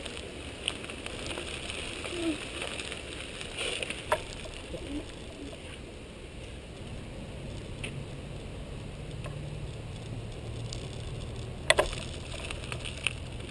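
Wheels rolling along a gravel path and then across the boards of a wooden footbridge: a steady rolling rumble with a few sharp knocks, the loudest near the end.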